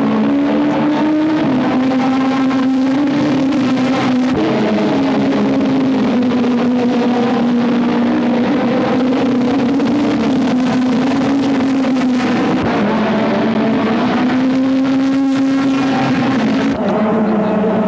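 Car engine running steadily, a loud drone that wavers slightly in pitch and drops a little near the end, with scattered clicks.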